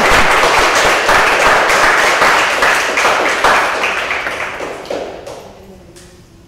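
A small group applauding, the clapping thinning out about four seconds in and dying away with a few last claps near the end.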